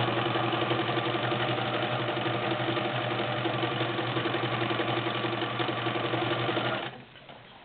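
Morse Apollo 6500 sewing machine running steadily under its electric motor, sewing a zigzag stitch with an even rhythmic needle beat, then stopping about seven seconds in.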